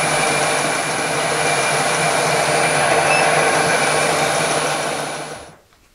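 Milling machine spindle motor running steadily with a low hum and a thin high whine, then switched off and quickly winding down to near silence near the end.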